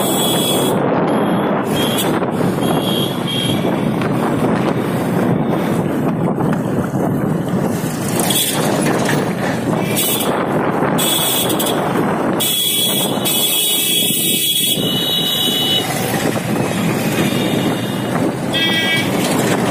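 Steady rush of wind and engine noise from a Suzuki GS150R motorcycle riding through traffic. Vehicle horns toot several times, in short blasts, with the longest run of honking about two seconds long just past the middle.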